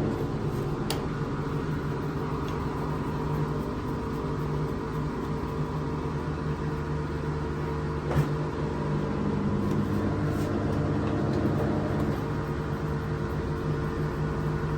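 LG top-load washing machine running with a steady motor hum, after its door-lock sensor and magnet were fixed to clear the dE error. A few sharp clicks sound about a second in and about eight seconds in.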